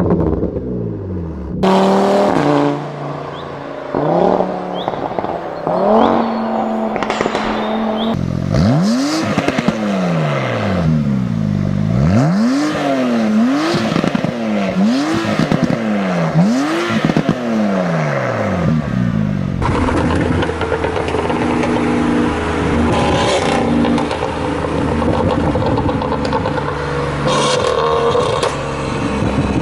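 Several high-performance car exhausts, one after another: free revs rising and falling five or six times in quick succession, with crackles and pops from the exhaust. Near the end another engine runs on with a scatter of sharp cracks.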